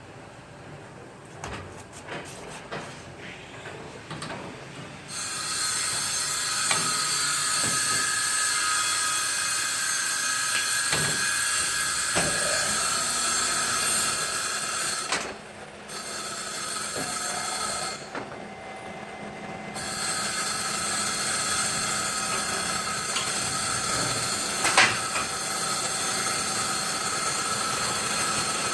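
A machine running with a steady loud hiss and high whine, starting about five seconds in after a few light knocks and cutting out briefly twice before running on.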